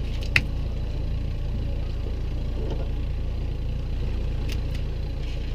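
Boat engine idling with a steady low hum, with a single sharp click about a third of a second in.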